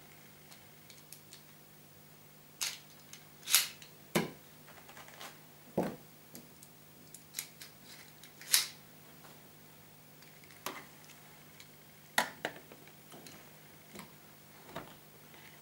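Small plastic parts and packaging handled by hand: scattered sharp clicks and brief rustles, irregular, about eight louder ones spread through the stretch.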